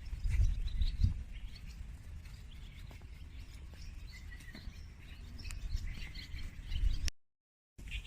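Small birds chirping and twittering over a low outdoor rumble. The sound cuts out completely for under a second about seven seconds in.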